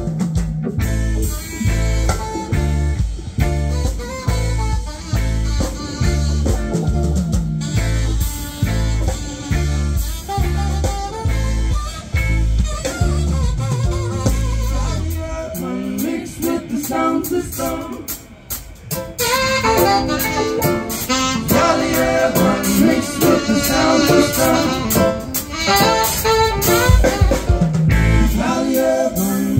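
Live band playing through a stage PA: drum kit, bass guitar, guitars and keyboard, with singing. A heavy, rhythmic bass line drops out about halfway through, and the full band comes back in a few seconds later.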